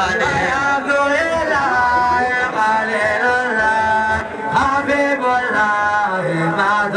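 Male voice singing a melodic devotional chant, with long held notes that bend and waver.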